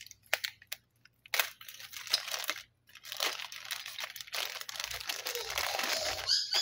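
Clear plastic packaging bag crinkling as it is pulled open by hand: sharp, scattered rustles at first, thickening into an almost continuous rustle in the second half.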